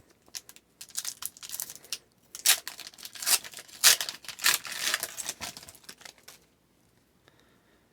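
Foil wrapper of a hockey card pack being torn open and crinkled, in a run of quick crackles, then quiet for the last second and a half or so.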